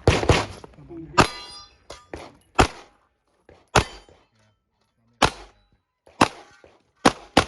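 A handgun fired shot after shot, about ten shots in uneven strings with short pauses between them. About a second in, one hit is followed by the ringing clang of a steel target.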